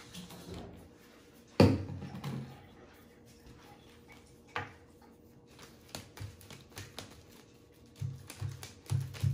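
Dot markers dabbed onto a paper plate on a wooden tabletop. There is one loud knock about a second and a half in, a lone tap a few seconds later, then a quick run of soft thumps near the end.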